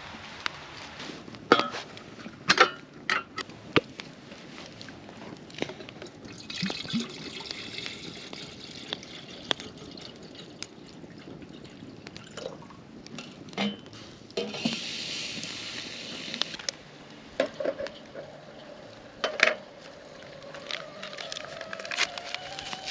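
Water pouring and sloshing into a container by a campfire, among scattered sharp clicks and knocks. Near the end a faint tone comes in and rises slightly.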